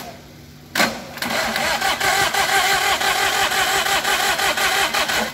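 Daihatsu Charade's three-cylinder turbodiesel engine, out of the car, being started: after a loud knock, about four seconds of loud engine sound with a rapid, even beat that cuts off abruptly.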